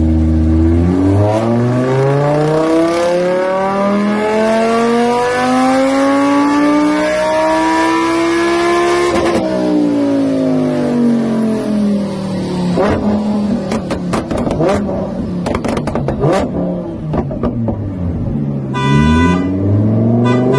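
Car engine revving up, its pitch climbing steadily for about nine seconds and then falling away, followed by a run of sharp clicks and pops and a brief steady high tone near the end.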